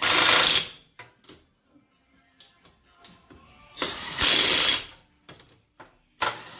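DeWalt 20V MAX XR DCF899H brushless half-inch impact wrench tightening lug nuts in short bursts of about a second each: one at the start, one about four seconds in and one near the end. Small clicks and knocks of the socket and nuts come between the bursts.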